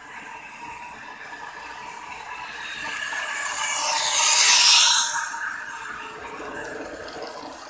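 Battery-powered toy train's small electric motor whirring and its wheels rattling along plastic track. It grows louder as it approaches and passes close by, loudest with a hissing rush about four to five seconds in, then fades as it moves away.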